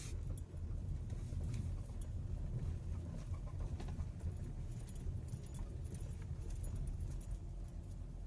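Hyundai Elantra driving over a rough road: a steady low rumble with scattered light rattles and knocks, which the owner puts down to a bad engine mount.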